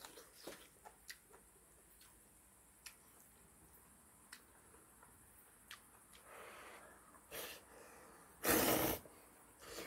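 Wooden chopsticks clicking lightly against a metal pot lid as ramyeon noodles are lifted, a few scattered ticks. Near the end, a loud short rush of breath over the noodles, about half a second long.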